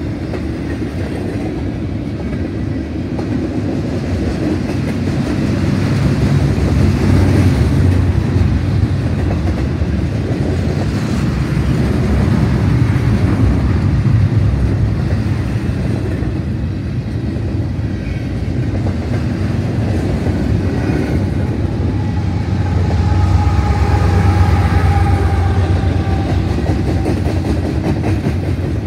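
Double-stack intermodal freight train passing at close range: a steady heavy rumble of steel well-car wheels rolling on the rail, swelling and easing as the cars go by. A faint whine joins in for a few seconds about three-quarters through.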